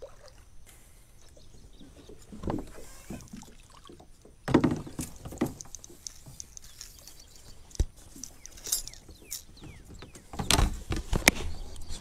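A hooked bass splashing at the surface and being lifted into a plastic kayak, then scattered knocks and clicks against the hull as it is handled, with a cluster of sharp knocks near the end.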